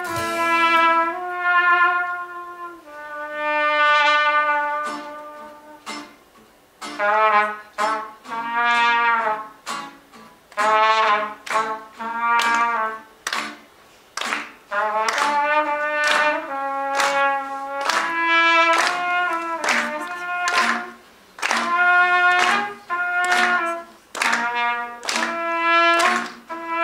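A trumpet playing a melody in phrases of short and held notes, with brief pauses between phrases.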